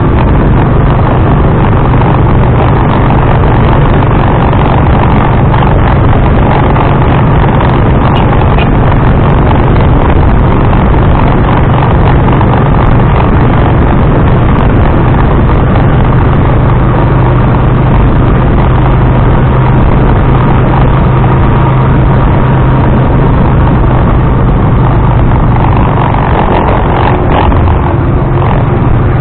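Loud, steady drive noise of a motorized tricycle (motorcycle with sidecar) picked up by an action camera's built-in mic: a constant low engine hum under a dense rush of road and wind noise, with little change throughout.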